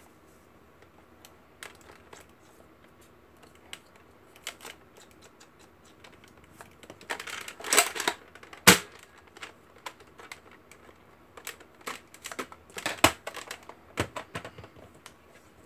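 Plastic clicks and knocks of a Buzz Bee Air Warriors Stryker Force foam-dart blaster being handled and loaded, with a rapid run of clicks and a single loud, sharp snap just under nine seconds in, then another run of clicks around thirteen seconds in.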